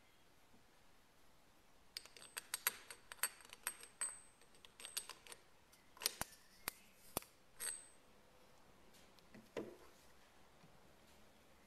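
Small steel parts of a Kitagawa B206 power chuck clinking together as they are fitted by hand: a quick, irregular run of sharp metallic clicks, some with a faint ring. Near the end a part is set down on the bench with a duller knock.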